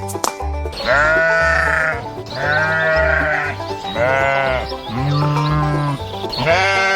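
Sheep bleating several times, each call about a second long and wavering, over background music with a steady beat.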